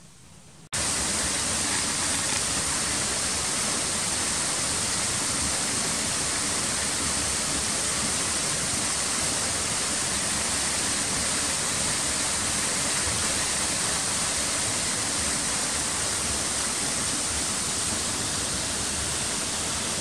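Steady rush of the Kuroyama Santaki waterfalls, the upper Odaki and lower Medaki falls. It cuts in suddenly about a second in and holds even throughout.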